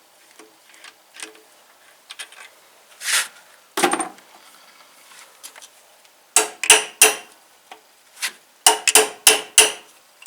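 Hand tools and steel engine parts clinking and knocking: scattered sharp clicks, a scrape about three seconds in, then two quick clusters of metal-on-metal strikes during teardown of a connecting rod with a spun rod bearing.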